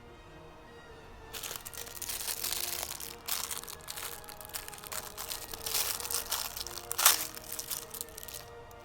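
Plastic toy packaging crinkling and crunching as it is handled and torn open, with a sharp click about seven seconds in. Quiet background music plays throughout.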